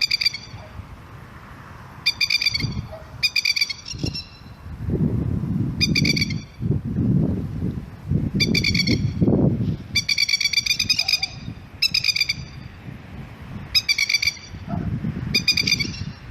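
Masked lapwing giving its fast, stuttering 'kekekek' alarm call in short bursts every one to two seconds, with one longer run about ten seconds in. This is the call these birds use to defend a chick.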